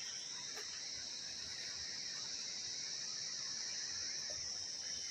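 Steady, high-pitched chorus of insects such as crickets, a continuous drone with no breaks.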